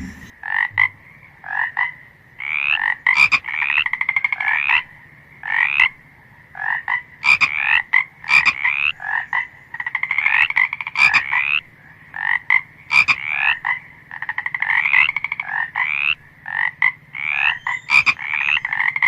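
Frogs croaking in a chorus: many short, rapidly pulsed calls, several overlapping, some rising slightly in pitch, with a few sharp clicks among them.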